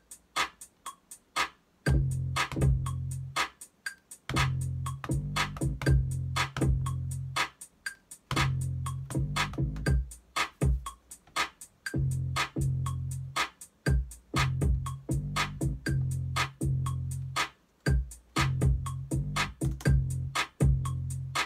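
Looped electronic music: a drum-machine beat of sharp ticks about four a second over a deep synth bass. The bass drops in and out in phrases of a second or two, and the loop cuts out briefly a few times.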